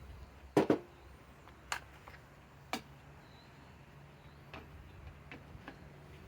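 Hard plastic clicks and knocks from handling a cordless drill battery and its adapter. A loud double knock comes just under a second in, two sharp clicks follow about a second apart, then a few softer ticks.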